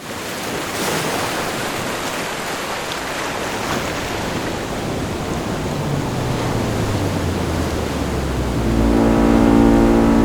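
Heavy sea noise of waves and rushing water, with a deep steady drone coming in partway through and a deep horn-like tone joining near the end.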